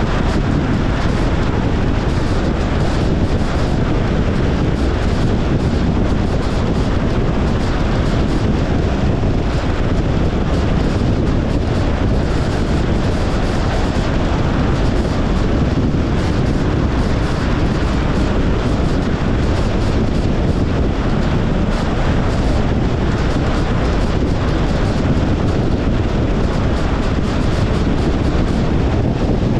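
Steady rush of tyre and wind noise from a moving Tesla Model Y Long Range. The car is electric, so no engine note is heard.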